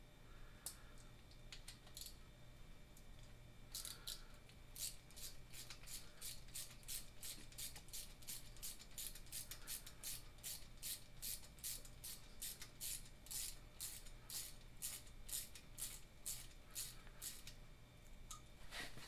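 Ratchet wrench clicking in a steady back-and-forth rhythm, about three clicks a second, as a bolt is run into a Ford 5.4 V8 engine block. It starts with a few scattered clicks and settles into the steady run about four seconds in, then stops shortly before the end.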